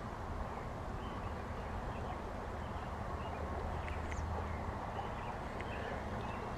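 A baitcasting reel being cranked to retrieve a cast lure, over a low, steady outdoor hiss with a few faint ticks scattered through it.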